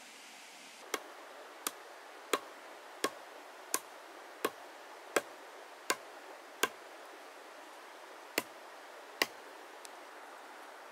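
Steady chopping blows from a hand tool, eleven sharp strikes about one every 0.7 seconds, with a short pause about two-thirds of the way through.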